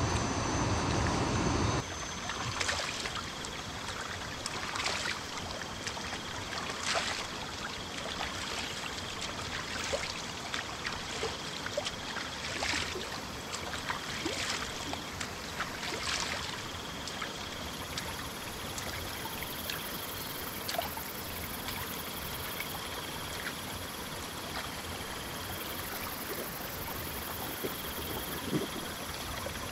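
River water running steadily over rocks in a rapid. A thin high tone comes and goes over it, and the flow is louder for the first two seconds.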